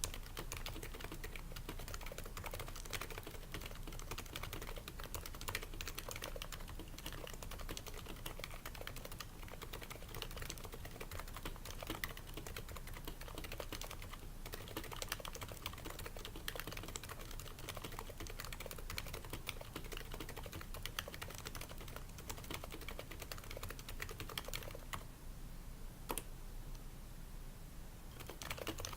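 Typing on an HHKB Pro 2 keyboard with Topre switches fitted with o-rings to quiet them, its slider rails lubed and its case lined with shelf liner: a steady, fast stream of key presses that thins to a brief lull near the end before picking up again.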